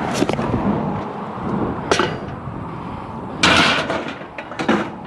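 Items being handled and moved while rummaging through a pile of discarded household goods: a few sharp knocks, and a louder clattering rattle about three and a half seconds in.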